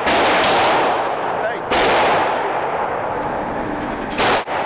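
Handgun fire at an indoor firing range: about three loud shots, one at the start, one under two seconds in and one about four seconds in. Each shot overloads the microphone and rings on in the room's echo between shots.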